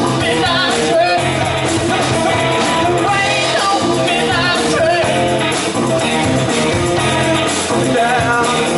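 Live blues band playing: singing through the PA over electric guitar, bass guitar and drums, with a steady beat.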